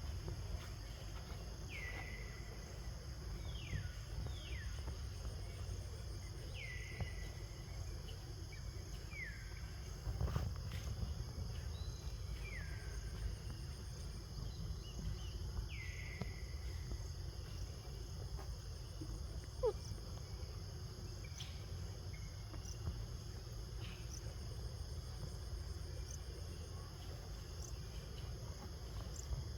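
A high call that slides down in pitch and levels off, repeated about eight times at uneven gaps, over a steady high insect drone and low wind rumble.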